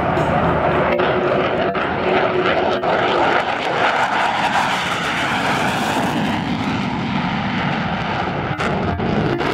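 F-15C Eagle fighter jet's twin turbofan engines in a low flyby: loud, continuous jet noise whose pitch falls as the jet passes and climbs away.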